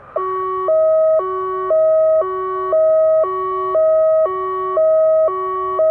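Federal Signal Modulator 1004 electronic siren sounding a custom hi-lo tone: two steady pitches alternate, each held about half a second. It is the alert tone of a chemical spill alert test, given between the spoken announcements.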